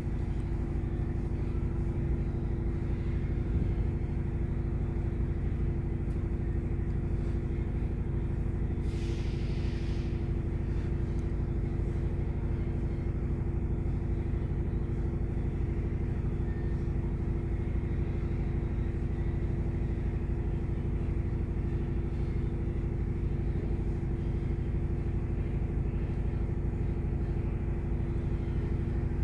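Steady low mechanical drone with a constant hum, unchanging throughout, and one brief hiss about nine seconds in.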